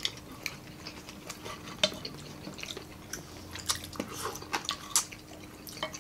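Close-up eating sounds from several people eating with their hands: irregular wet mouth smacks and chewing clicks, with occasional light taps on plates.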